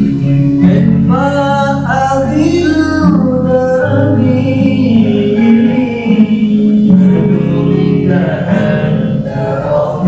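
A voice singing a sholawat melody with long, wavering melismatic runs over sustained instrumental accompaniment.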